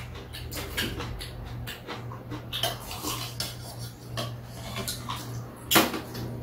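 Metal spoons and chopsticks clinking and scraping against a stainless steel serving bowl and tray during a meal, in many small clicks, with one louder knock near the end.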